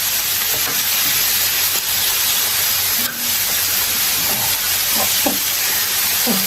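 Lamb chops frying in hot oil in a pan, with a steady sizzle.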